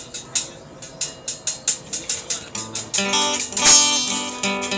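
A guitar-type string instrument being strummed: a run of quick, clipped strokes, then ringing chords from about three seconds in.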